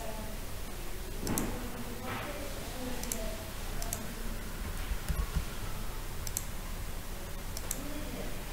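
Computer mouse buttons clicking: about six sharp clicks spread out, several as quick press-and-release pairs, over a steady hiss of room noise.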